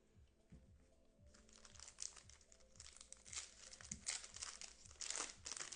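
Foil trading-card pack wrapper crinkling and tearing as it is opened, starting about a second in and getting louder near the end, over faint background music with a steady beat.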